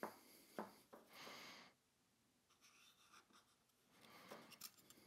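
Faint scratching of a black felt-tip marker drawn along a model railroad rail, in short strokes about a second in and again near the end, with a couple of light clicks at the start.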